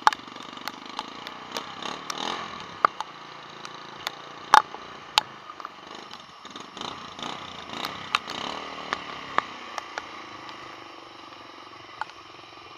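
Two-stroke Kawasaki motorcycle engine with a tuned expansion-chamber pipe idling steadily, with many scattered sharp clicks and knocks over it.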